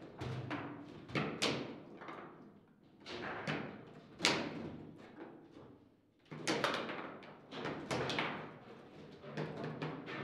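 Foosball table in play: irregular sharp knocks and clacks as the ball is struck by the player figures and hits the table, the loudest about four seconds in, with a short lull near six seconds.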